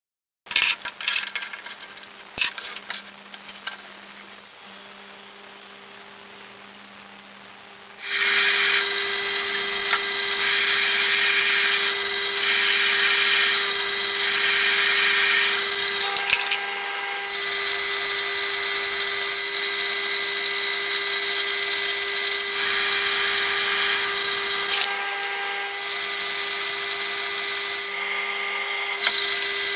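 Lathe running, with a few clicks and a low motor hum at first. About eight seconds in, a loud, steady machining sound begins: a fixed whine with a strong hiss, stepping up and down in level. This fits a workpiece being turned and cut on the lathe.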